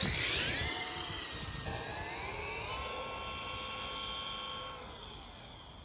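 HG P601 6x6 RC crawler's electric motor and gearbox whining at full throttle on a speed run. The whine climbs in pitch as the truck accelerates away over about two seconds, then holds steady and fades as it runs into the distance.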